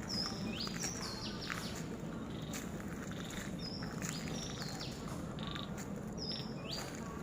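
A bird singing the same short, high phrase three times, about every three seconds, over a steady low background hum.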